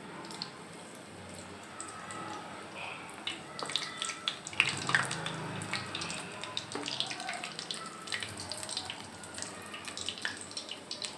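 Gulab jamun dough balls deep-frying in hot oil: a steady sizzle full of small crackling pops, busier from about three and a half seconds in.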